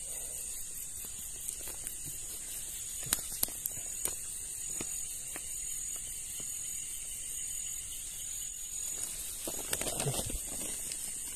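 Steady high-pitched chirring of insects. A few light clicks come about three seconds in, and leaves and undergrowth rustle near the end.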